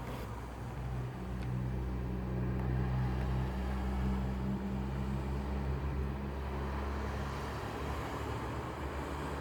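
Low, steady droning hum made of several deep tones, the unexplained eerie noise being recorded; its highest tone drops out a little past the middle.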